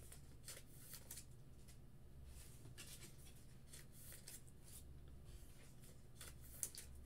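Faint rustling and scraping of trading cards being handled and slid into plastic sleeves on a table, over a low steady hum.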